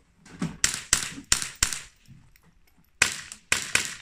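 .22 LR rimfire rifle fired rapidly in a minirifle stage: four quick shots, a pause of over a second, then three more.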